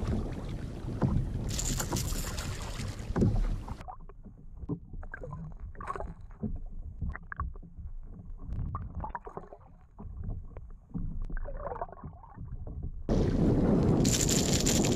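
Wind on the microphone and water splashing around a kayak at sea. After about four seconds this gives way to muffled underwater sound: water rushing and gurgling with scattered faint clicks. The open-air wind and splashing return near the end.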